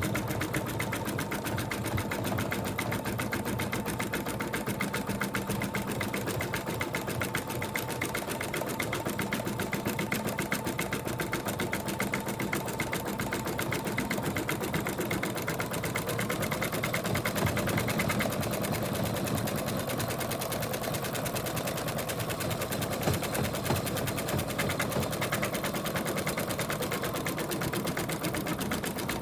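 Sewing-and-embroidery machine, driven by its foot pedal, stitching steadily at speed, running the outline stitch all the way around an in-the-hoop stuffed monkey.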